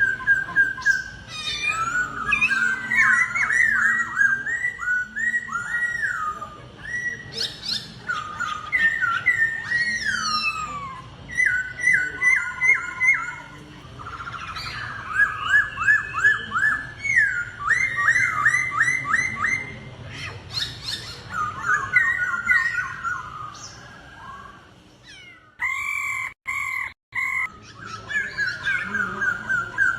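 Laughingthrush (khướu) singing a loud whistled competition song: rapid series of repeated, sliding notes grouped into varied phrases. The song breaks off briefly near the end, then resumes.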